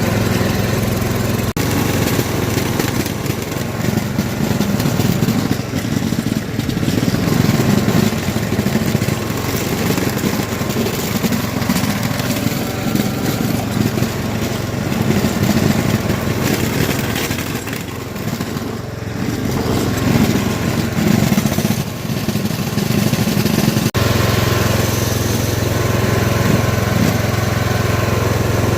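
Toro lawn tractor's small engine running steadily while plowing snow, its note shifting abruptly about a second and a half in and again near the end.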